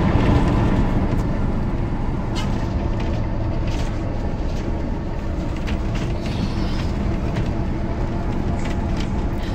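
Interior of a moving coach bus: a steady engine and road rumble, with a few sharp clicks and rattles over it.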